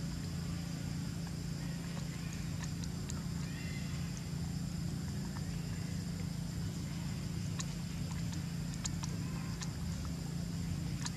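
Outdoor forest ambience: a steady low hum under a high, even insect drone, with scattered sharp clicks that come more often in the second half.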